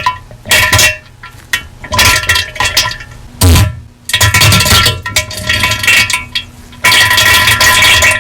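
Ultra-saturated, heavily distorted diarrhea sound effect: a string of irregular loud bursts, some brief and some lasting more than a second.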